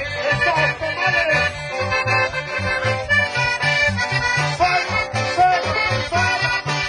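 Accordion-led Mexican dance music with a steady, even bass beat.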